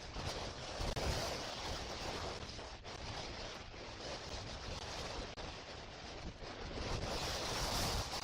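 Strong hurricane wind gusting over an outdoor camera microphone, a steady rushing noise that swells about a second in and again near the end.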